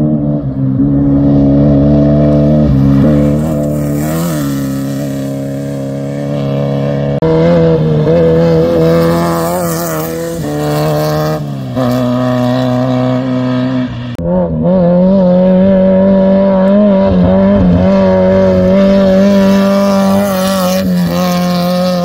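Air-cooled VW Beetle-bodied off-road race cars passing at high, fairly steady engine revs. The engine pitch jumps abruptly several times.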